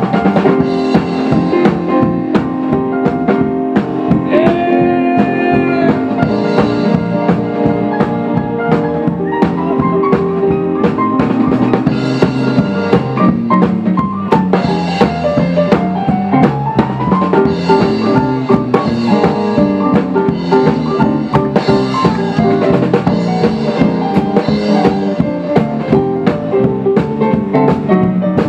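Live swing band playing an instrumental passage: a drum kit keeps a steady beat under keyboard and guitar, with a melodic lead line sliding up and down.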